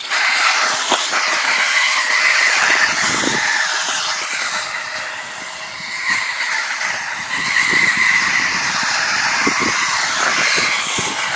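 Motor of a 1/18-scale HK RC stadium truck whining as it is driven fast over grass, its pitch rising and falling with the throttle over a steady hiss. It turns quieter for a couple of seconds in the middle.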